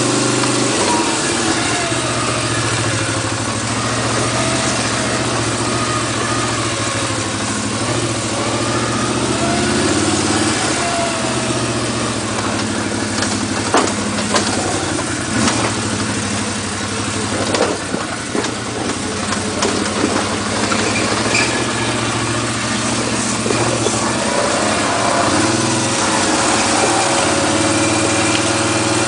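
ATV engine running, its pitch rising and falling with the throttle, with several sharp knocks about halfway through.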